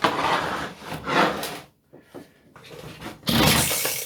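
Parts and tools rubbing and scraping on a wooden workbench during hands-on work on a strimmer engine: a long scrape lasting about the first second and a half, a short one in the middle, and another near the end.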